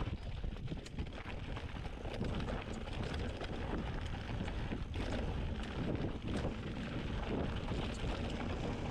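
Wind buffeting the microphone while a Specialized Stumpjumper 27.5-inch mountain bike runs downhill over a rocky trail: a steady tyre rumble with scattered knocks and rattles.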